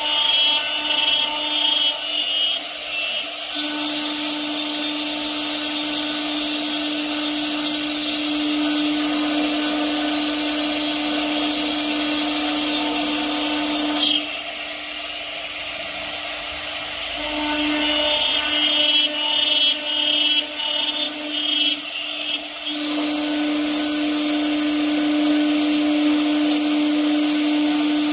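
A CNC bridge cutting machine running, giving a steady motor whine with higher overtones. The whine wavers at the start and again for several seconds after the middle, and drops in level about halfway through.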